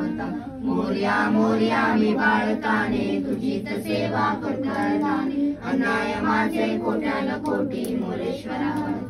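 A group of voices, women and children among them, singing a Hindu aarti hymn to Lord Ganesh together.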